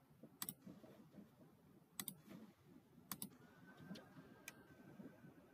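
Four faint clicks of a computer mouse over near silence, the first three each a quick press-and-release pair. A faint steady high tone comes in about halfway through.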